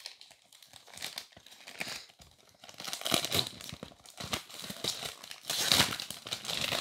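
Clear plastic cellophane wrap crinkling and tearing as it is peeled off a cardboard box. Rapid crackly rustling grows busier and louder from about halfway through.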